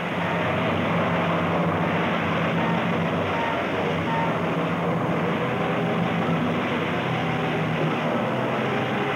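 The piston engines of B-25 Mitchell bombers, twin radials, droning steadily in flight.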